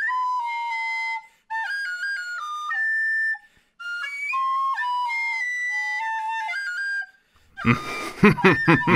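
Recorder-style flute playing a bright melody in three short phrases with brief breaks between them. About seven and a half seconds in, louder cartoon laughter breaks in.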